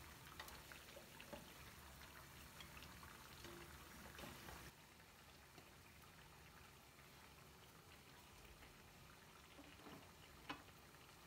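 Near silence: faint kitchen room tone with a low hiss that drops away about halfway through, and a soft click near the end.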